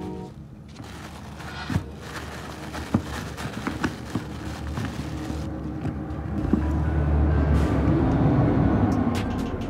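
Plastic bag crinkling as dirty phones are pulled out of it and handled, with several sharp clicks of the phones knocking together and onto the work mat.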